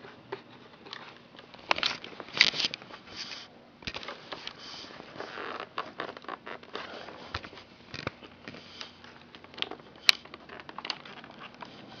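Hands handling a Sony Vaio laptop's plastic underside: irregular clicks, taps and rustling scrapes, with a sharp click about ten seconds in.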